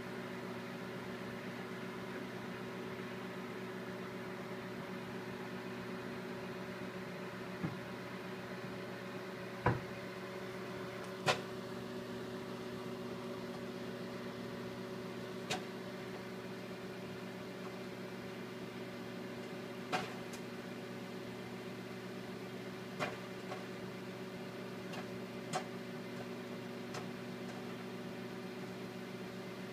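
Microwave oven running with a steady hum while popcorn kernels in a paper bag begin to pop: single sharp pops, a few seconds apart at first and coming faster near the end, as the kernels start popping.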